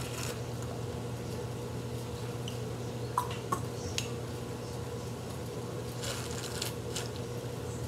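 Stainless-steel turkey baster drawing grease out of browned ground beef in a wok and squirting it into a glass jar: soft squishing, liquid sounds and a few light clinks of the metal tube against the wok and jar, over a steady low hum.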